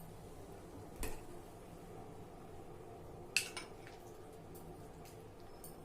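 Kitchen utensils and dishes clinking: two short sharp knocks, one about a second in and a louder one about three and a half seconds in, over a faint steady hum.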